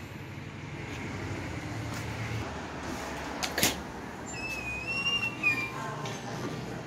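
A door knocking once as it is passed through, over a steady low background hum, followed by a faint thin high tone for about a second.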